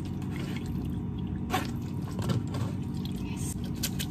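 Raw shucked oysters being tossed by hand in a wet stainless mesh strainer during a lemon rinse after a vinegar wash: squishing and dripping, with a few sharp clicks from the strainer, over a steady low hum.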